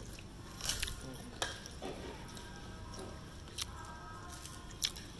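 Eating utensils clicking and clinking against a plate several times over a low background murmur.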